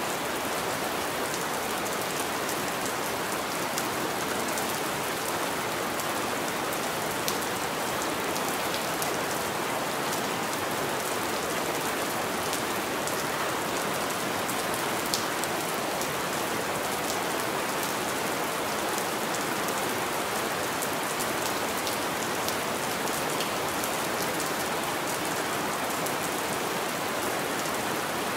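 Steady rain falling on window glass: an even hiss scattered with many small, sharp drop ticks, and a couple of louder single taps.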